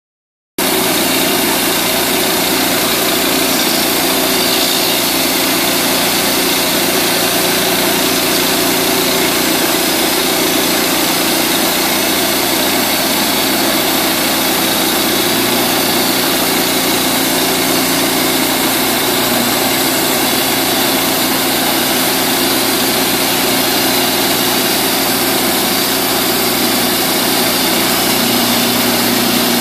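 Single-cylinder Honda GX390 engine of a portable band sawmill running steadily, its note shifting slightly near the end.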